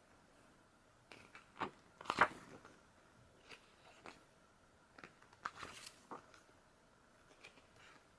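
Photobook pages being turned and handled: scattered short paper rustles and crackles, the loudest about two seconds in and a small cluster around five to six seconds.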